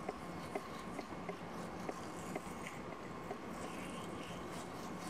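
Faint, gentle scrubbing of a manual toothbrush working activated-charcoal paste over teeth fitted with braces, with small soft ticks now and then.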